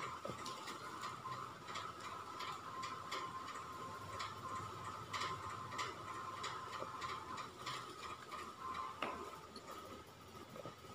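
Light, sharp ticks and taps coming irregularly, about one or two a second, over a steady high-pitched hum.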